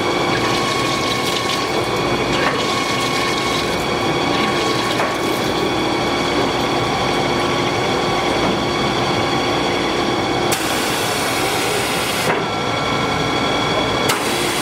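CNC plate drilling machine running, a 22 mm carbide drill cutting 30 mm thick steel plate: a steady machine noise with a held hum. A high hiss switches on and off twice in the last few seconds.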